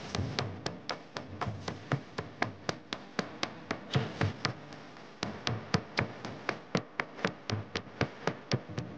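A steady rhythmic tapping beat, about four sharp strokes a second, like the percussion track of devotional music with the melody dropped out.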